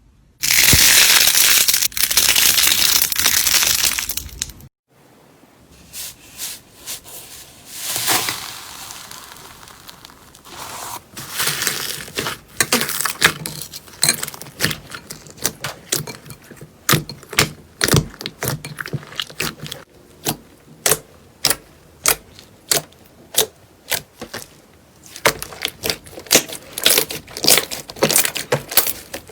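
Slime being pressed and poked by hand: a loud crunchy crackle for about four seconds, then, after a short break, a long run of sharp pops and clicks, several a second, as air pockets in the slime burst.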